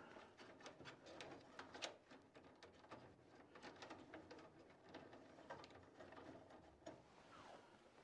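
Near silence with faint, irregular small clicks and rustles, as a hand handles the wires and connectors inside a gas furnace's cabinet.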